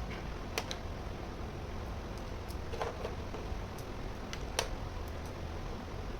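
A handful of light, sharp clicks and taps from small plastic toy kitchen pieces being handled, the loudest about three-quarters of the way through, over a steady low hiss.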